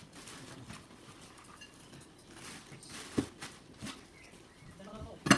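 Light knocks, clatter and rustling of a garden trampoline's metal frame, enclosure poles and mat being handled during assembly, with a sharper knock about three seconds in and a loud knock right at the end.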